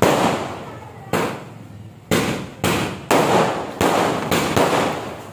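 Fireworks going off in a quick series of sharp bangs, about eight in five seconds, each one fading out over a fraction of a second.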